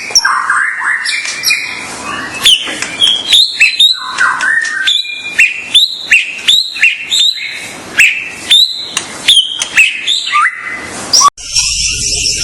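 Songbird song played as a masteran tutor recording for caged birds: a quick run of sharp chirps, clicks and short rising whistled notes. Near the end it cuts off suddenly, and a different series of repeated rising whistles begins.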